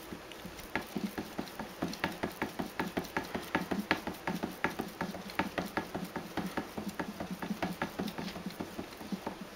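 A tabby cat's front paws patting and scratching fast at a clear plastic food container with a red lid: a steady run of quick plastic taps, several a second, that stops near the end. The cat is trying to get at the food inside.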